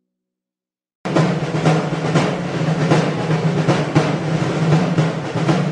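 Silence for about a second, then a loud, dense percussive rumble starts abruptly and keeps going: a steady low drone under irregular strikes, in the manner of a drum roll.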